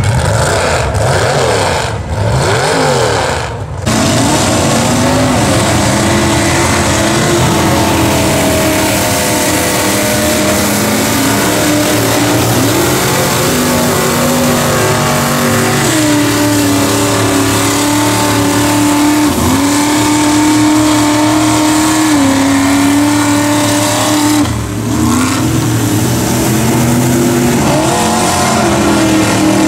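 After a short intro sound lasting about four seconds, the El Camino mega mud truck's engine runs hard under load in deep mud. Its pitch climbs and drops again and again as it hits gears and torques up.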